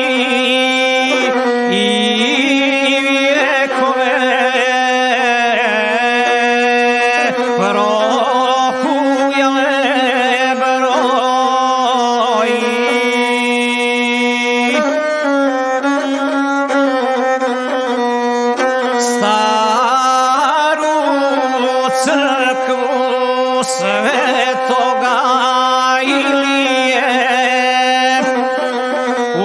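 Gusle, the one-string bowed Balkan folk fiddle, playing a continuous, heavily ornamented melody over a steady low note, accompanying a guslar's sung epic poem.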